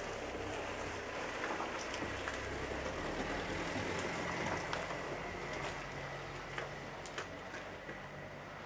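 Jawa two-stroke motorcycle engine running steadily, with a few light clicks over it.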